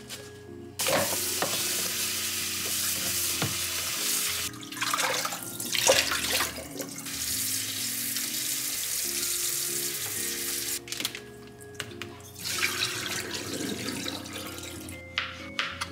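Kitchen tap running into a plastic colander in a steel sink as mushrooms are rinsed and rubbed by hand. The water comes in about a second in and eases off about eleven seconds in. Soft background music underneath.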